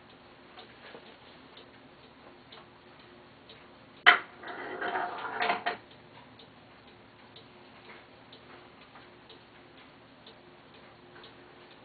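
Paragon rolling ball clock: a chrome steel ball drops onto the wooden track with a sharp click about four seconds in, then rattles along it for about a second and a half. Faint ticks from the running clock mechanism come before and after.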